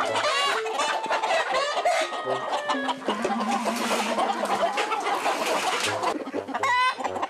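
A flock of chickens clucking and squawking together, with roosters crowing over the flock several times.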